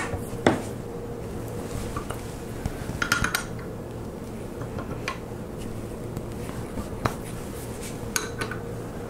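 Allen wrench working steel socket head cap screws as they are tightened down to clamp a machinist vise to its mounting plate. Scattered sharp metallic clinks and ticks of the key against the screw heads and steel, with a quick cluster about three seconds in, over a faint steady hum.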